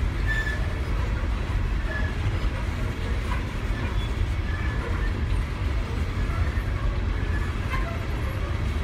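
Freight train of empty coal cars rolling past: a steady low rumble of wheels on rail, with brief high wheel squeals now and then.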